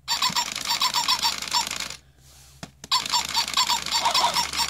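Tekno robot dog toy's walking mechanism running with rapid plastic clicking of its gears and leg joints, stopping for just under a second about two seconds in and then starting again. One of the toy's legs is broken.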